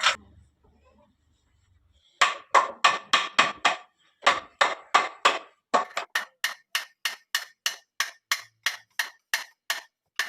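A hammer striking wood over and over, sharp blows starting about two seconds in. They come in two short runs, then settle into a steady beat of about three blows a second.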